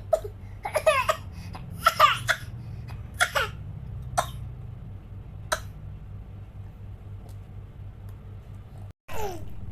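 Young child coughing: a quick run of four or five short voiced coughs in the first three and a half seconds, two brief single sounds after that, and one more cough near the end.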